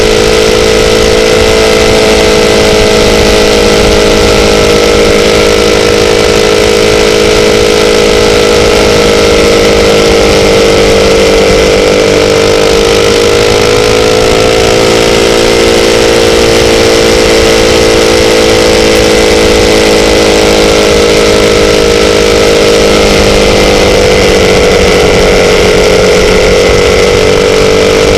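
Motorcycle engine running steadily, its pitch drifting slowly up and down as the revs rise and ease off, over a steady rush of wind and road noise.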